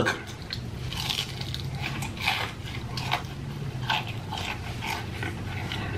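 Close-miked biting and chewing of KFC fried chicken: short wet mouth noises come about every half second to a second, over a low steady hum.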